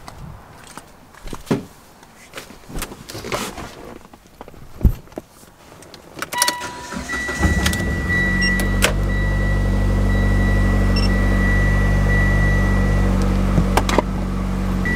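Turbocharged Mitsubishi Lancer GT's four-cylinder engine starting about seven and a half seconds in and then idling steadily, run just after an oil change to check for leaks. Before it, a few clicks and knocks, and a high electronic tone from the car sounds for several seconds across the start.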